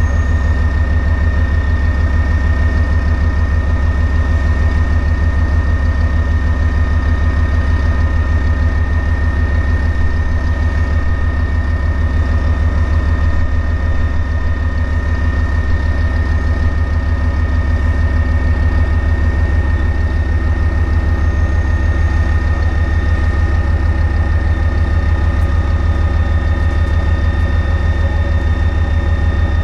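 Bergepanzer 2 armoured recovery vehicle's V10 diesel engine idling steadily with its crane boom raised. A deep even throb carries a thin steady high whine over it.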